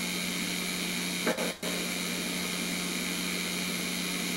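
Staged steam explosion of a hot-water pressure washer's superheated heating coil, which had its safety shutdowns removed: a steady hiss with a low hum, broken about a second and a quarter in by a brief loud burst as the coil bursts, the sound cutting out for an instant before the hissing carries on.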